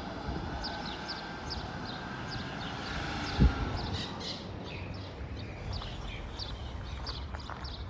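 Small birds chirping repeatedly in short, high, falling notes over steady outdoor street noise, with a single low thump about three and a half seconds in.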